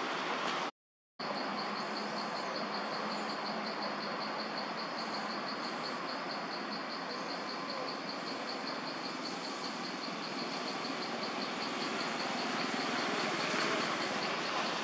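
Forest ambience of insects: a steady dense hiss with a rapid, evenly pulsing high-pitched insect call over it. The sound cuts out completely for about half a second near the start.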